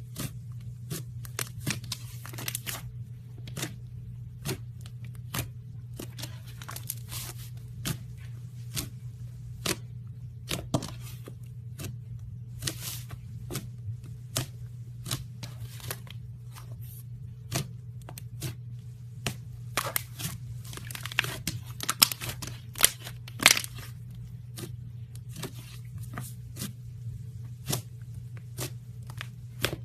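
Slime being squished and stretched by hand, giving irregular sharp crackles and pops, in denser clusters about two-thirds of the way through. A steady low hum runs underneath.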